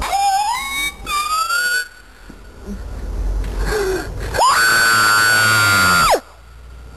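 A child's high-pitched yelling: short rising squeals at the start, then, about four and a half seconds in, a loud scream held steady for nearly two seconds that drops off at the end.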